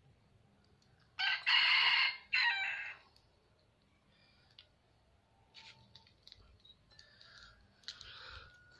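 A rooster crowing once, about a second in: a loud call of about two seconds with a short break before its last part.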